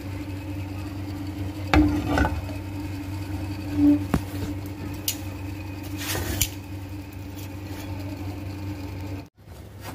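Steady low buzzing hum in the kitchen, with a few brief soft handling sounds as a chapati is pressed and turned on a hot tawa.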